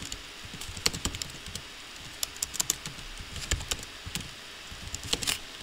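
Computer keyboard keys clicking in quick, irregular taps as a command is typed.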